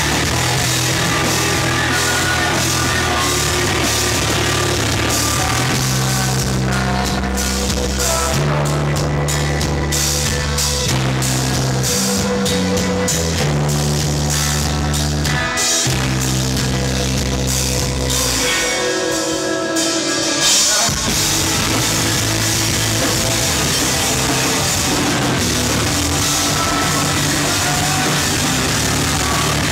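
Heavy rock band playing live at full volume: drum kit, bass guitar and keyboards, with long held low bass notes through the middle. The low end drops out briefly about two-thirds through, then the full band comes back in.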